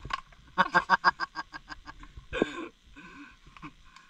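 A person laughing in a quick run of short 'ha' pulses, about seven a second, followed by a couple of shorter breathy laughs.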